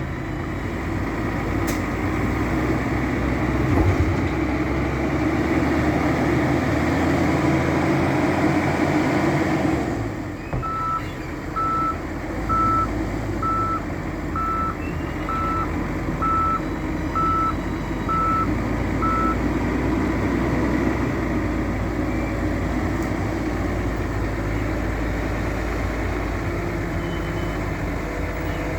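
Wheel loader's diesel engine running steadily under load, heavier for the first third, then easing. Partway through, a reversing alarm beeps about once a second, ten beeps, as a machine backs up.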